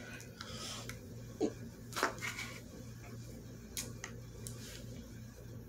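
A few faint, short clicks and handling noises over a low steady hum.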